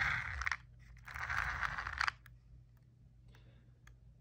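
RC buggy's drivetrain, its gearbox freshly lubed and fitted with a new ball differential, whirring in two short spins, the second about a second long, followed by a few faint clicks.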